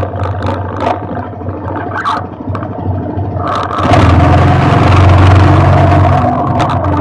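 Quad bike engine running at idle, then revving up as the bike pulls away about four seconds in, joined by a rush of wind and tyre noise.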